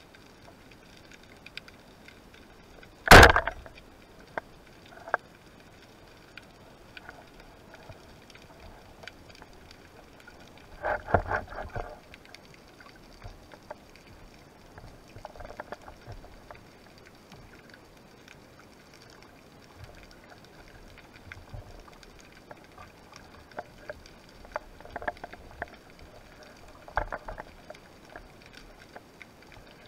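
Underwater, a rubber-band speargun fires with one sharp crack about three seconds in. Scattered fainter clicks and knocks follow as the shaft and line are handled.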